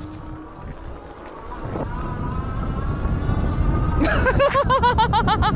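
Electric fat-tyre bike picking up speed: a thin motor whine rises slowly in pitch over growing tyre and wind rumble. About four seconds in the brakes come on with a squeal that pulses and wobbles in pitch about five times a second, which the rider calls "a little janky".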